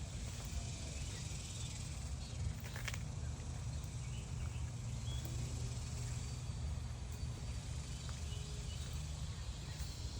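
Garden ambience: a steady high hiss of insects over a low wind rumble on the microphone, with one sharp click a little under three seconds in.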